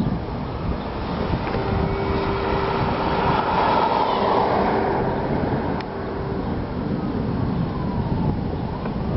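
A vehicle passing by: a steady hum that swells to a peak about four seconds in and then fades, with a steady tone running through the middle.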